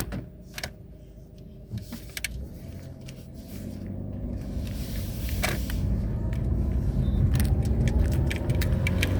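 A car pulling away and accelerating: engine and road rumble grow louder from about three seconds in as the engine note rises. Small clicks and rattles are scattered through it.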